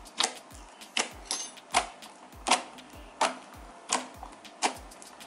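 Thick, fluffy rainbow slime clicking and popping as fingers press and poke into it, crisp sharp clicks about every 0.7 s with softer ones between. Background music with a steady low beat runs underneath.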